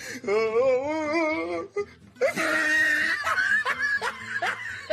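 A person laughing in one long wavering peal, then music comes in about two seconds in, with short falling laugh-like cries over it.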